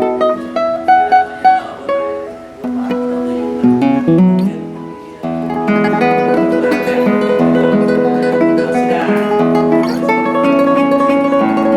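Lattice-braced classical guitar by Stephen Connor played solo: quick plucked melody notes at first, a couple of brief lulls, then fuller, continuous ringing notes from about five seconds in.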